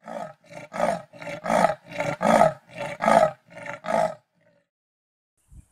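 A leopard's sawing call: a run of about ten harsh grunts in a steady rhythm, a little over two a second, alternating louder and softer, which stops about four seconds in.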